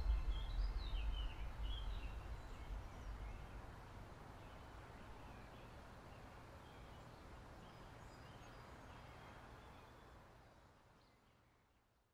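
Outdoor ambience hiss with a few brief bird chirps in the first two seconds, over the dying tail of a low bass tone; it all fades out to silence near the end.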